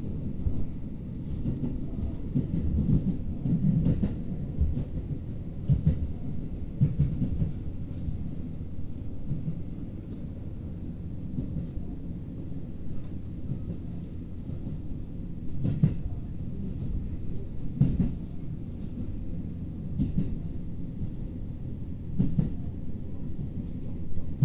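Diesel railcar running along the track, heard from inside the car: a steady low rumble with irregular short knocks from the wheels and running gear.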